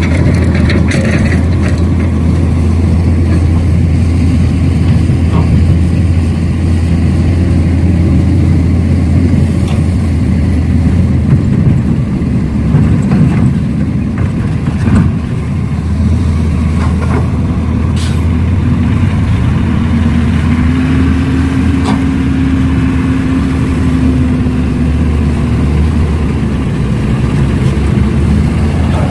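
Radio-controlled model excavator and dump truck working: a steady low engine hum with scattered clicks and knocks, and a higher whine that rises and falls about twenty seconds in.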